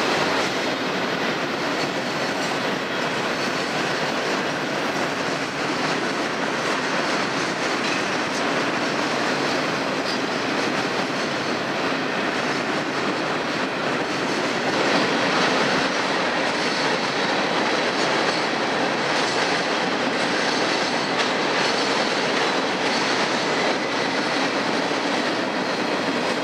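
A freight train rolling past: a steady noise of steel wheels running on the rails as the cars go by, growing a little louder about halfway through.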